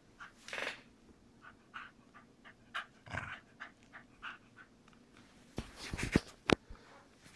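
Corgi panting and mouthing a rubber squeaky chicken toy: a short squeak about half a second in, then soft breathy bursts, and a few sharp loud clicks near the end as it bites the toy.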